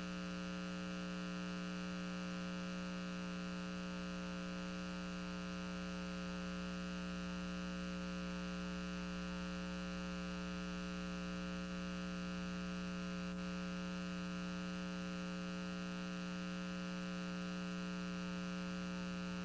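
Steady electrical mains hum, several pitches held constant with nothing else over it.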